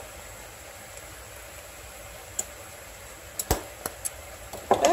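A few sharp clicks and knocks of a spice shaker being shaken over a skillet and handled, the loudest about three and a half seconds in, over a faint steady hiss from the pan of spinach.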